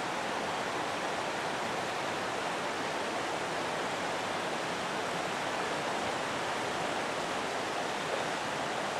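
Steady rushing of a river, an even noise with no breaks.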